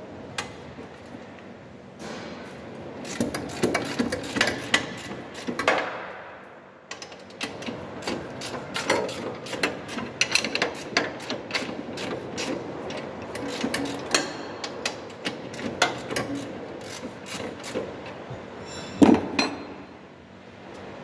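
Steel ring spanner clicking and clinking on a bolt head while a bolt on a truck gearbox bracket is being undone, in quick irregular runs of sharp metallic clicks. Near the end there is one louder knock.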